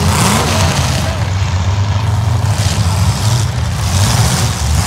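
Several demolition derby cars' engines running and revving at once, rising and falling with the throttle.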